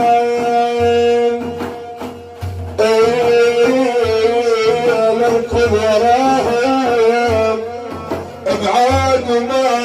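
Middle Eastern devotional music: a held note, then a wavering, ornamented melody over a slow, steady drum beat, about one stroke every second and a half.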